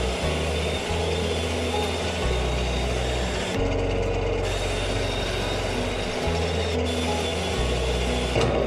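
Background music with a stepping bass line, over the steady running noise of the lathe as the bowl's resin is buffed.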